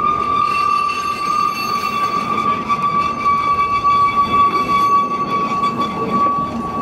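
Narrow gauge steam locomotive's whistle sounding one long steady blast, its pitch sagging slightly, over the rumble of the running train.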